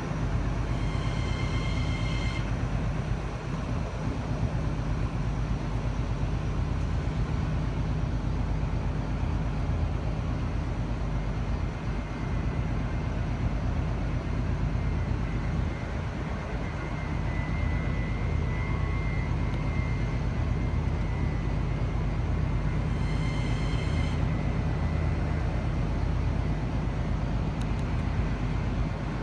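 NSW TrainLink D-set (New Intercity Fleet) double-deck electric train moving slowly alongside the platform, with a steady low hum and rumble. A short high-pitched tone sounds twice, about a second in and again some 23 seconds in.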